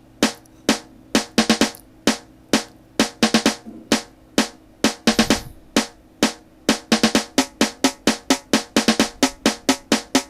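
Programmed snare drum roll playing back from a drum sample: single snare hits of uneven loudness, spaced irregularly at first and coming closer and closer together toward the end as the roll builds. A low thump sounds about five seconds in.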